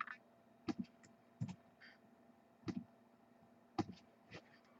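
Faint, scattered clicks from a computer mouse and keyboard, about eight in all, irregularly spaced.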